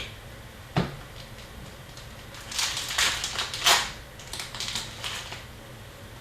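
Hockey card pack being opened by hand: a single click about a second in, then about three seconds of crinkling and tearing of the pack wrapper.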